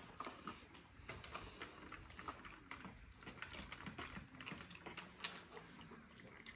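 Faint, irregular clicks and scrapes of metal forks against foil takeaway trays and a plate while eating.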